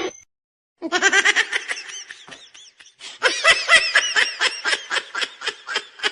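A person laughing hard in rapid, high-pitched bursts, in two bouts with a short break about two seconds in.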